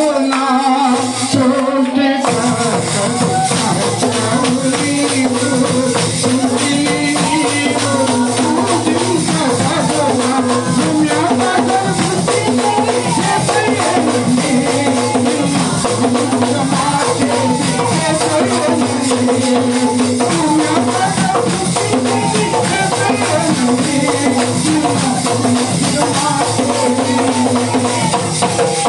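A man singing a Telugu Christian song into a microphone, over instrumental backing with a steady rhythmic percussion beat.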